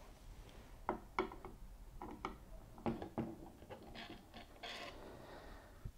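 Hex key working the small screws out of a cast aluminium preamp case: a run of faint, light metal clicks and taps, with a short scraping rub about five seconds in.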